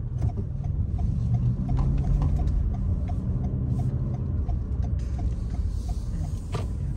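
Car interior: steady low road and engine rumble, with a turn signal ticking evenly at about three clicks a second and one sharper click near the end.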